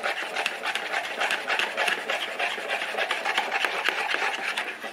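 Wire whisk beating a flour-and-cold-water paste in a plastic bowl: a fast, continuous scraping and rattling against the bowl's side. The paste is being whisked smooth and lump-free as a thickener for stew gravy.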